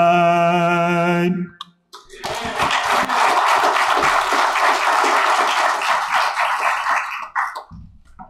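A man's voice holds the last sung note, then cuts off about a second and a half in. After a short pause an audience claps for about five seconds, fading out near the end.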